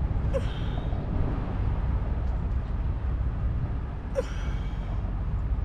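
Steady low rumble of vehicle noise, with two brief sharp clicks about four seconds apart as wire is worked and clamped with pliers at a car's fuse box.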